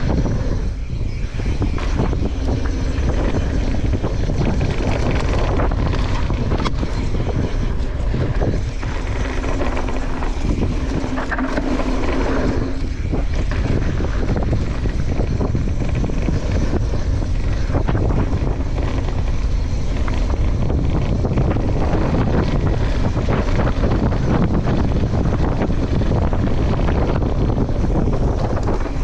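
Steady wind rushing over the microphone of a camera carried on a fast trail ride, with a faint low steady tone through roughly the first half.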